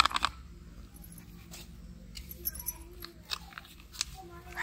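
A plastic packet of cocoa powder crinkling in a few faint, scattered crisp clicks as it is tipped to pour over a steel mixing bowl, over a steady low background rumble.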